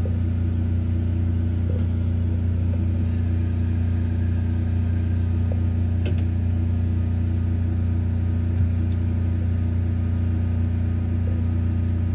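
A steady low mechanical hum, even in level throughout, with a faint high whine for about two seconds a few seconds in and a light click near the middle.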